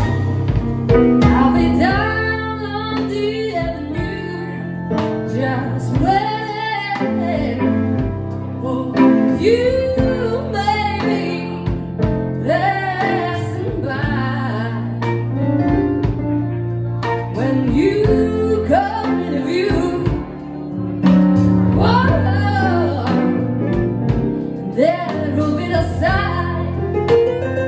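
Live blues band playing: organ and keyboard chords, a bass line, drums and electric guitar, with a lead melody of bending, sliding notes on top, likely a woman singing.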